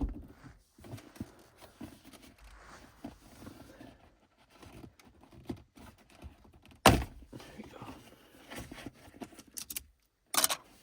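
Plastic shift boot trim being worked loose around a car's gear lever: scattered rustling and light taps, one sharp knock about seven seconds in, and a quick run of clicks near the end.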